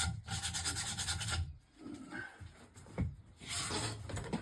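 Sandpaper rubbed by hand over old solid wood in rapid strokes, stopping about a second and a half in, followed by a few quieter rubs and a single knock about three seconds in.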